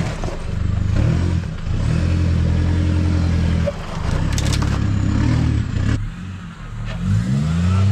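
Four-wheel-drive ute engine working under load as it crawls up a rock step, its revs holding and then dropping away. After a break about six seconds in, a Toyota Land Cruiser 80 Series engine revs up, rising in pitch.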